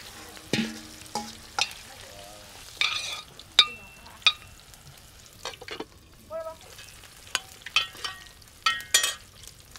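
Long metal spoon stirring food in an aluminium cooking pot: about a dozen irregular sharp clanks and scrapes against the pot, some ringing briefly, over a faint sizzle of the onions, tomatoes and meat frying inside.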